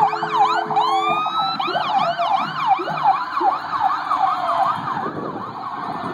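Fire truck siren in a fast yelp, with a steady horn note held until about a second in and a second siren winding up just after; the yelp fades after about four seconds as the truck moves off.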